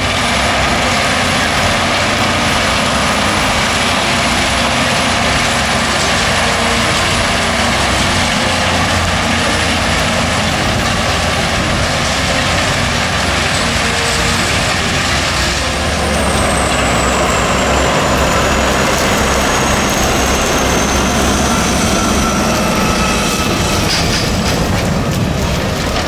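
John Deere 9530 articulated tractor's diesel engine running steadily under load while pulling a wide Lemken stubble cultivator, with the steady rush of the implement working through the stubble. About halfway through, a faint high whine starts and slowly falls in pitch.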